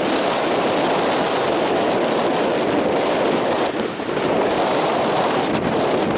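Strong wind blowing hard across the microphone over heavy surf, a loud steady rush that eases briefly about four seconds in.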